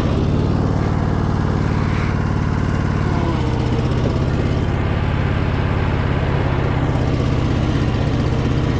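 Small engine of a vehicle towing a drag across a dirt RC track, running steadily at low speed. Its note shifts slightly a little over three seconds in.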